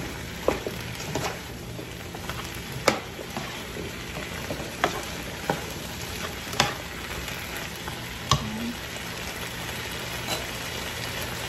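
Chopped vegetables sizzling in a large skillet after a splash of water, while a spatula stirs them, knocking and scraping against the pan about every second or two.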